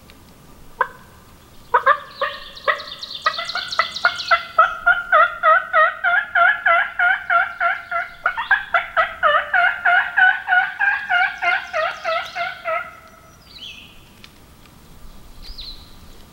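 Mouth-blown turkey call imitating a hen: a few sharp clucks and cutts, then a long, rapid run of yelps at about three or four a second that stops abruptly about thirteen seconds in. A few faint songbird chirps follow.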